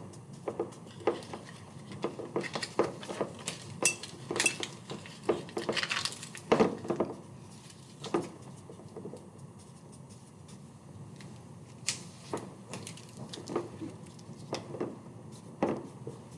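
Glass lab flasks and thermometers being handled on a tabletop: irregular clinks, taps and knocks, thickest in the first half, with a longer rustling scrape about six seconds in.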